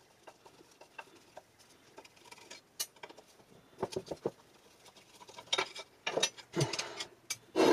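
Small clicks and scrapes of a steel screwdriver working a rusted screw in a cast-iron vise base, and of hand tools being handled on the bench. The sounds are sparse at first, then come in louder, busier clusters from about halfway through.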